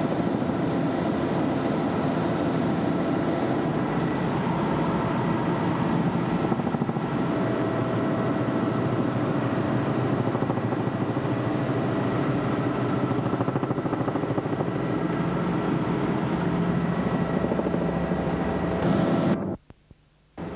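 Helicopter running steadily with a constant whine over its noise, cutting off suddenly near the end.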